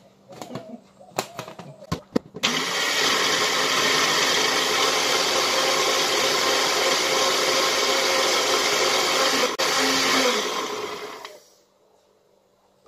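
NutriBullet personal blender running steadily for about eight seconds, grinding onion and garlic with a little water into a paste, then winding down. Before it starts, a few clicks and knocks as the blade cup is screwed on and set on the base.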